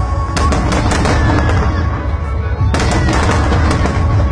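Fireworks display going off: rapid crackles and bangs, with denser clusters about half a second in and again near three seconds, over a constant low rumble. Music plays underneath.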